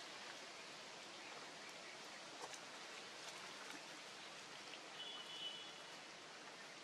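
Faint outdoor ambience: a steady hiss with scattered light ticks and rustles, and a brief high tone about five seconds in.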